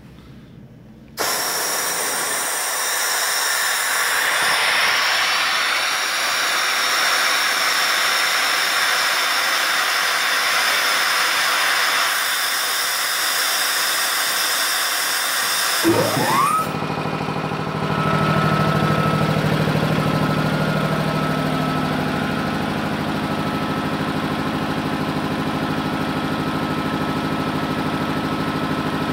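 Compressed air blasting out of the tank drain of a Champion 25 HP reciprocating air compressor, a loud steady hiss for about fifteen seconds as the tank pressure bleeds down. Near 80 psi the compressor cuts back in: its electric motor spins up with a quick rising whine and the piston pump then runs steadily.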